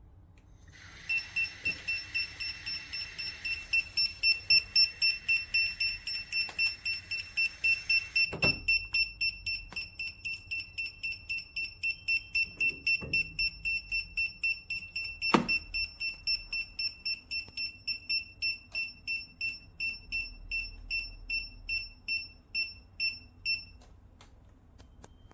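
Kiprim GD01 gas leak detector sounding its alarm: rapid, even, high-pitched beeping, about two to three beeps a second, which signals that it is detecting combustible gas. A hiss runs under the beeping for the first several seconds, and there are two knocks, one near the middle and one about two-thirds of the way through.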